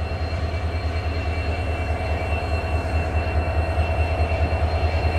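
Indian Railways WDP-4D diesel-electric locomotive's two-stroke V16 engine idling at a standstill: a steady, fast-pulsing low throb with a thin high whine above it.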